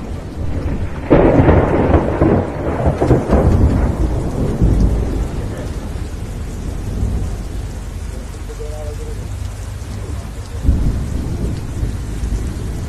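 Thunder rolling over steady rain: a loud rumble starting about a second in and lasting a few seconds, then a smaller roll near the end.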